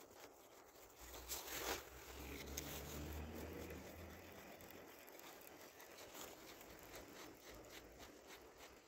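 Rustling of a jacket sleeve against the microphone, with small handling clicks; the loudest is a brief scrape about a second and a half in.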